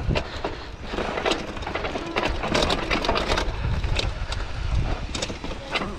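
Mountain bike rolling down a rough dirt single track: tyres running over dirt and stones, with frequent rattling knocks from the bike over a steady low rumble of wind on the microphone.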